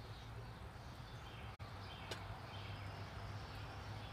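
Faint outdoor background with a steady low hum and one sharp click about two seconds in.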